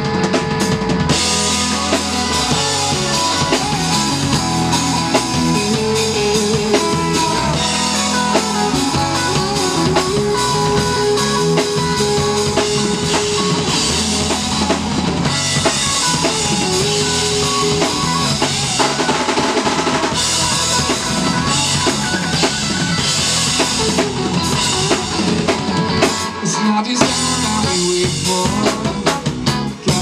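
Live band playing an instrumental passage: a drum kit keeps a steady beat under electric guitar, electric bass and trombone, with held notes over the groove.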